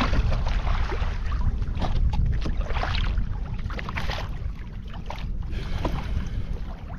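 Wind rumbling on the microphone over water splashing and slapping against a kayak at sea, with a few short irregular splashes.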